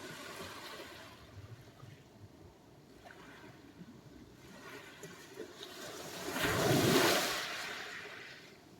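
Sea waves on the shore: a small wash at first, then a wave surging in about six seconds in, the loudest moment, and washing back out as it fades.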